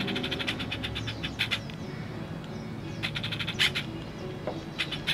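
Small birds chirping in short bursts of rapid, trilled high notes, four or five times.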